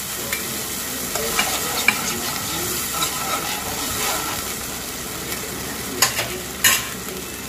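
Soy sauce and oyster sauce sizzling with sautéed garlic and onion in a nonstick pan while a spoon stirs them. The spoon knocks against the pan a few times, most sharply about six seconds in and again shortly after.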